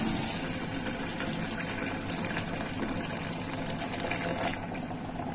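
Water boiling hard in an aluminium pot, then a stream of hot water poured into a pressure cooker of thick gravy; a steady bubbling, splashing hiss.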